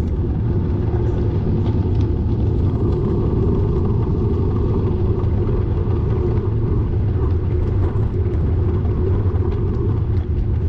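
Steady low rumble of wind buffeting the microphone on a moving bicycle, with faint scattered ticks.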